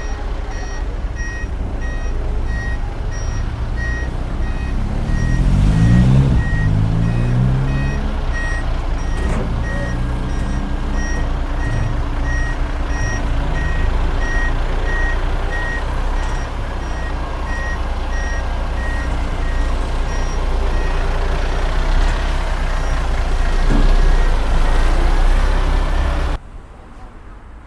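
A construction machine's reversing alarm beeping about twice a second over a diesel engine running, the engine revving up about five seconds in. The sound cuts off suddenly near the end.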